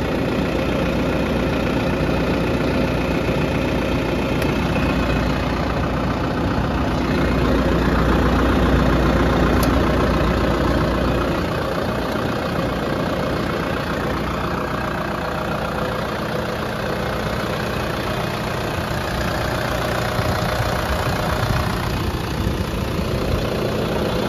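New Holland TD5040 tractor's diesel engine idling steadily with the hood open. The lowest part of the sound eases off about eleven seconds in.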